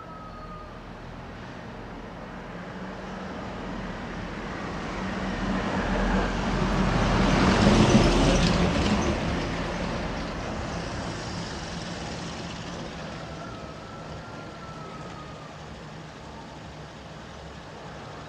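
A motor vehicle passes by on the road, approaching and then receding, with engine and tyre noise loudest about 8 seconds in before fading away.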